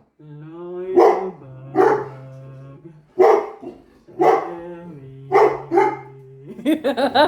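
Dogs barking excitedly at an empty wrapping paper roll, about six sharp barks, over a steady low drone that shifts pitch in steps between them.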